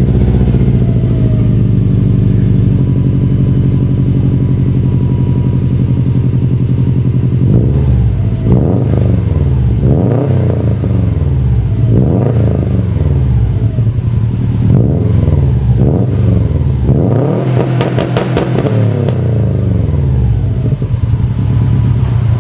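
Subaru WRX STI's turbocharged flat-four running through a freshly fitted Invidia N1 exhaust with titanium tips, with a deep, throaty note. It idles steadily, then is revved several times from about a third of the way in, the biggest rev late on, before settling back to idle.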